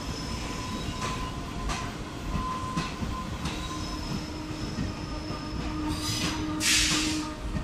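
Passenger coaches of an arriving express train rolling past close by: a steady rumble of steel wheels on the rails with irregular clicks as the wheels cross rail joints. A low steady hum joins about halfway, and a short loud hiss comes near the end.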